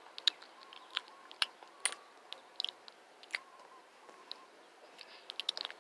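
Mouth-made chewing and smacking noises, a soft string of short, irregular clicks, play-acting an animal eating.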